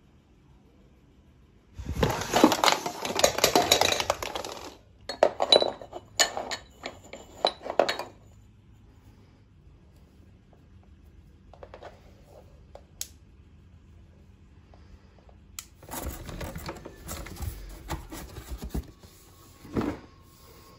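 Small household objects being rummaged through and handled: a burst of clattering and clinking, then a few separate sharp clinks. Softer rubbing and knocks of handling follow near the end.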